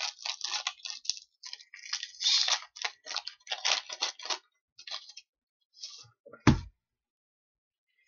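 Rustling and crinkling of a hockey card pack's wrapper and the cards inside as they are handled, in quick runs of small crackles that thin out after about four seconds. One sharp thump about six and a half seconds in.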